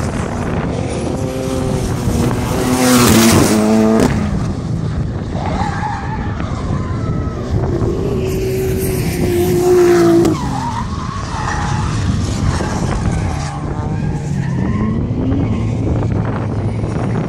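Drift cars sliding through the corner in tandem, engines revving hard with the pitch climbing and swinging up and down, and tyres squealing. The loudest moments come about three seconds in and again around ten seconds.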